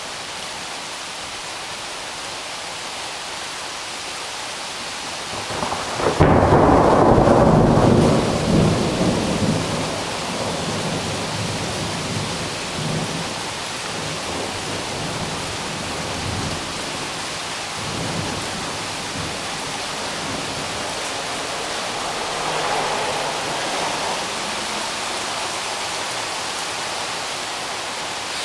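Steady rain with a loud thunderclap about six seconds in, rumbling on and slowly fading over several seconds, then a softer swell of rumble later on.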